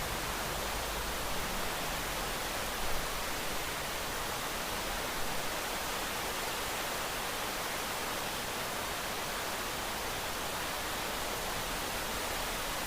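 Steady rain falling, an even hiss without distinct drops, swelling slightly for a moment about three seconds in.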